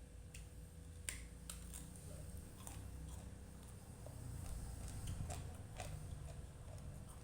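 Mouth sounds of someone eating somtam and raw vegetables up close: a string of sharp, irregular crunches and chewing over a faint low hum.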